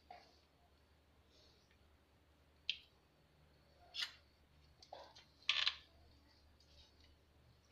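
Light kitchen handling sounds as sliced garlic is scattered over mackerel pieces in a clay pot: a few soft, brief clicks and rustles, the loudest about five and a half seconds in.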